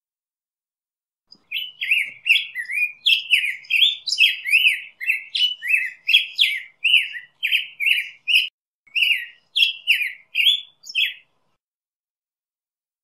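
Black-headed grosbeak singing one long song of quick, short notes that slide up and down in pitch. It starts about a second and a half in and runs almost without a break for about ten seconds, stopping shortly before the end.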